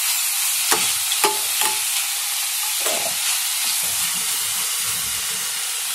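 Chopped vegetables sizzling in hot oil in a pan as they are stirred. There are a few sharp knocks of the stirring utensil against the pan in the first three seconds.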